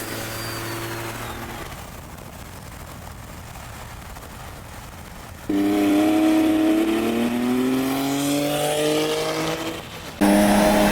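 BMW X3 M's twin-turbo straight-six engine, first running quietly, then about halfway through opening up to full throttle with a rising pitch for about four seconds. It drops briefly at a gear change and pulls hard again near the end.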